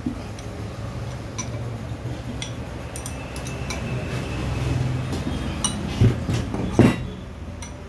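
Spanners and other hand tools clinking and tapping on the metal of a turbocharger as its bolts are given their final tightening during reassembly, with two louder knocks near the end.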